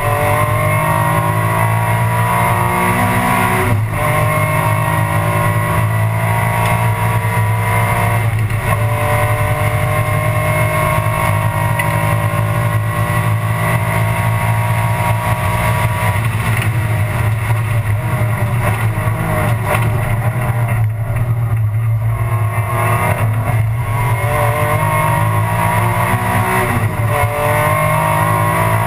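Alfa Romeo 156 GTA race car's V6 engine at racing speed, heard from inside the cabin. It pulls hard through the gears with sharp shift breaks about 4 and 8 seconds in, holds high revs, eases off for a moment past the middle, then climbs again with another shift near the end.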